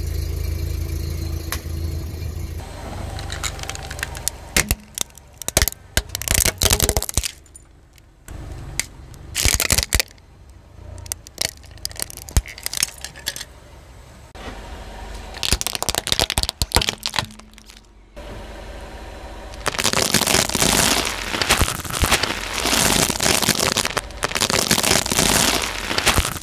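A car engine idling at first. Then a car tyre rolls over crunchy objects and crushes them in bursts of cracking and crackling, which run on without a break from about three quarters of the way in.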